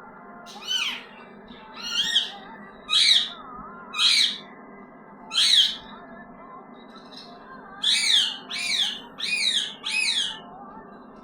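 Ringneck parrot (rose-ringed parakeet) screeching in harsh squawks, which the owner takes as an angry scream. Five calls come about a second apart, then after a short pause four more in quicker succession.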